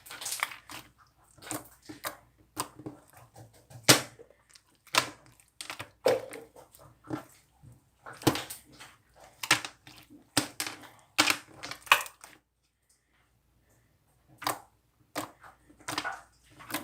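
Irregular crinkling and crunching: a string of short, sharp noises of uneven loudness, with a pause of about two seconds near the end.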